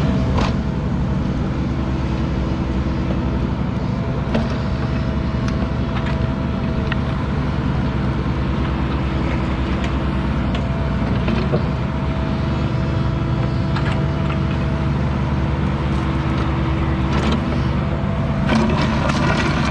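Mini excavator's diesel engine running steadily, with a few light clicks and knocks over it.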